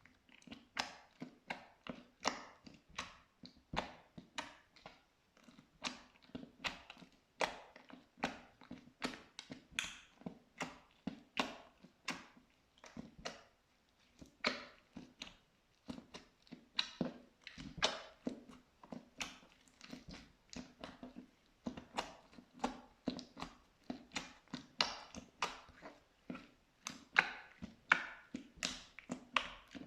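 Pink glitter slime being pressed and squeezed by hand, making a quick, irregular series of sticky pops and clicks, a few each second.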